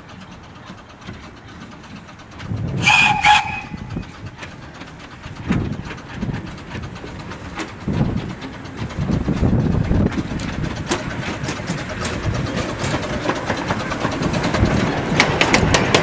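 Miniature-gauge Exmoor-built 2-6-2T steam locomotive gives a short whistle about three seconds in. Its running rumble then grows louder as the engine and its coaches pass close by, with rapid wheel clicks over the rail joints near the end.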